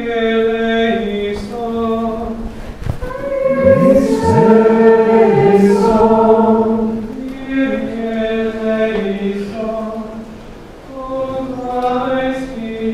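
A church choir singing unaccompanied chant, long held notes in slow, even phrases.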